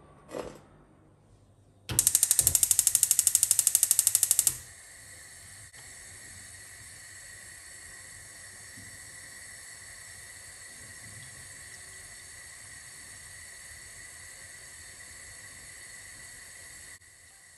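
Gas hob's electric igniter clicking rapidly and loudly for about two and a half seconds, then the steady hiss of the lit burner.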